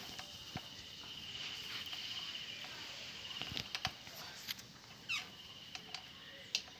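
Faint scattered clicks and ticks as bolts on a motorcycle exhaust cover are turned by hand, with a faint high, rapidly pulsing tone in the background.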